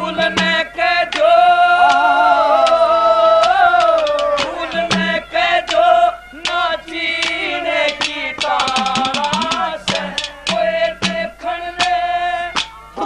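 A man singing a Haryanvi rangkat folk song in full voice, holding long, gliding notes, with a steady run of drum strokes behind him.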